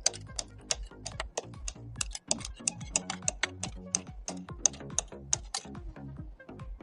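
Background music with rapid, irregular sharp clicks, several a second, like typing on a computer keyboard.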